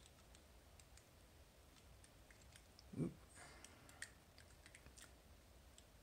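Near silence with faint, scattered small clicks of a brass magnetic-tumbler lock cylinder being handled in the fingers, and one short low sound about halfway through.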